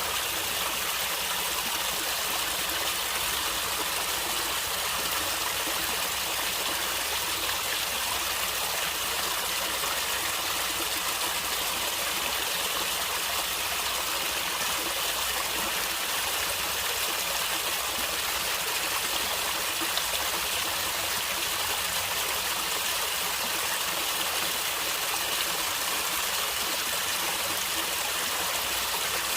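Natural stream water flowing and gurgling in a steady, even rush that does not change.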